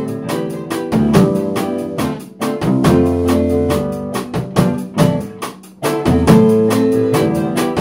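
A band playing an instrumental passage between sung lines: acoustic guitar, keyboard and drum kit keeping a steady beat.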